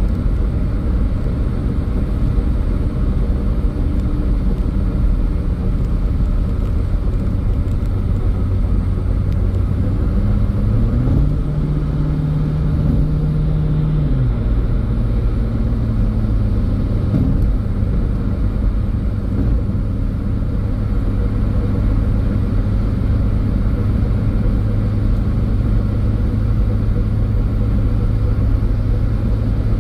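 Car driving on the road: steady low engine and tyre rumble. About ten seconds in the engine note rises, holds for a few seconds, then falls back.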